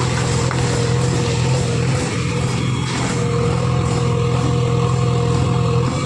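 Mahindra 475 tractor's diesel engine running steadily as it pulls a loaded trolley, with a strong low hum.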